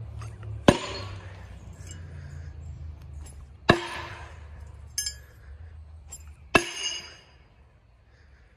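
Throwing knives hitting a wooden board target: three sharp hits with a metallic ring, about a second in, near the middle and near the end, with a lighter clink between the last two.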